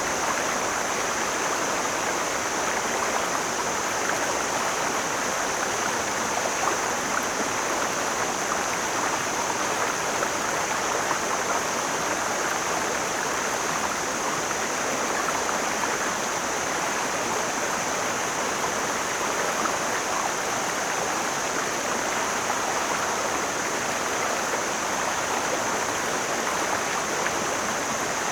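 Mountain stream flowing, a steady, even rushing of water.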